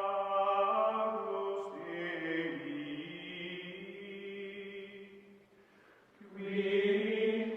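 Background music of long held, chant-like voices singing sustained notes, changing pitch about two seconds in; it fades out around five and a half seconds in, and a new held chord begins about a second later.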